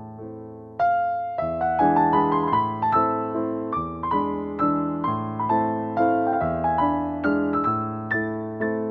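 Background piano music: a gentle melody of struck notes that ring and fade. A louder phrase comes in about a second in.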